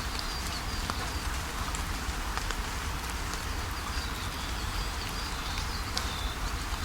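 Waterfall rushing steadily, with faint high bird calls over it.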